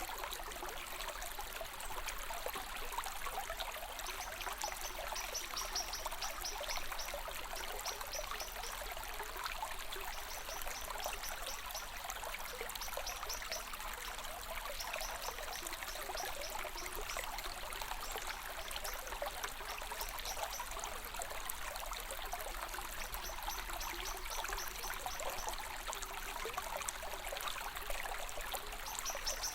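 A small stream flowing and trickling with a steady rush. Over it, a high, fast-pulsed chirping comes and goes in bouts of a few seconds.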